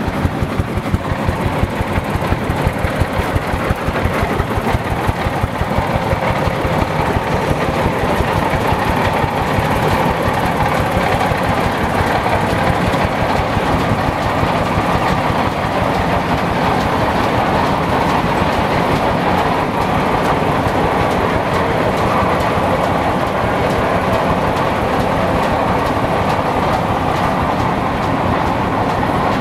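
Steam-powered mill machinery running: a regular chugging of about three beats a second that evens out after several seconds into a steady mechanical din.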